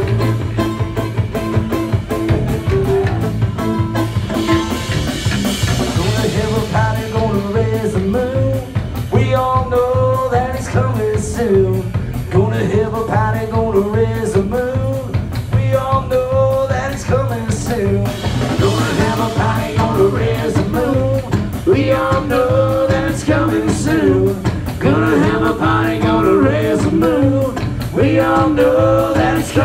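Live band playing a fast rock-and-roll song, with electric hollow-body guitar, upright bass and drum kit, and sung vocals coming in about eight seconds in.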